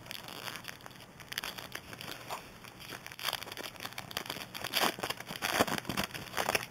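Foil wrapper of a baseball card pack being torn open and crinkled by hand: irregular crackling that gets louder in the second half.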